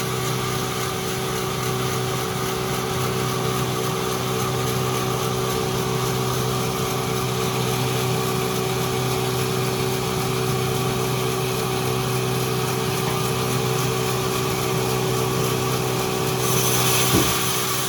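Sawmill machinery running with a steady motor hum. Near the end a higher hiss comes in, with one sharp knock.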